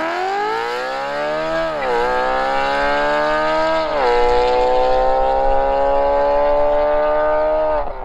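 Tuned BMW E93 M3's 4.0-litre V8, with an aftermarket full exhaust, accelerating hard. Its pitch climbs through the gears, with two quick upshifts about two and four seconds in, then a long slower climb in the next gear.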